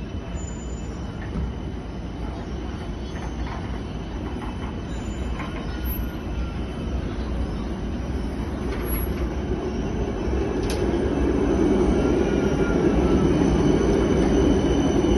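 Helsinki tram running on its rails with a steady rumble that grows louder over the last few seconds, and a faint wheel squeal near the end.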